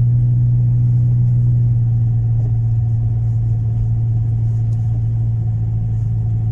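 A car driving, heard from inside the cabin: a steady low drone of engine and road noise that does not change.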